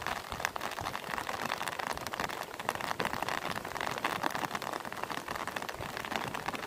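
Heavy rain falling steadily onto standing water and wet grass: a dense, even spatter of countless drop impacts.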